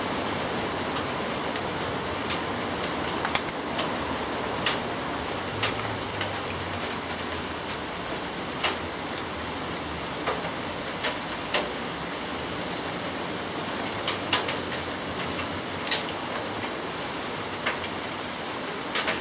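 Steady rain falling, with sharp individual drop hits standing out at irregular moments.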